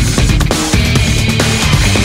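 Loud background music: hard-driving heavy rock with a steady drumbeat.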